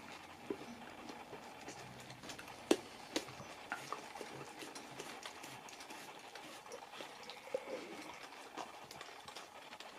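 Husky licking and nibbling at a hollow carob Easter egg: quiet licking with scattered small clicks as its teeth catch the shell, the sharpest about three seconds in.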